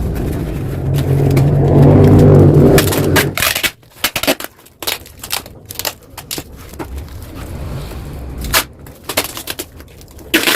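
Yamaha RX-King's single-cylinder two-stroke engine revving through its gutted exhaust, building to a peak and dropping off sharply about three and a half seconds in, followed by irregular sharp pops and clicks.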